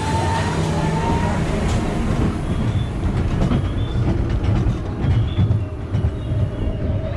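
Roller coaster train rolling along its steel track: a steady rumble of wheels on rail, with a few faint high squeals.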